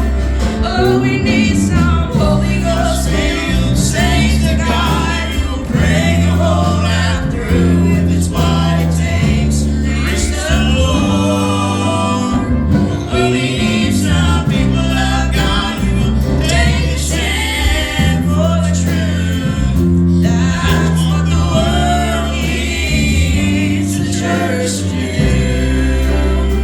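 A gospel group singing together in harmony over instrumental backing, with a walking bass line and a steady beat of percussion hits.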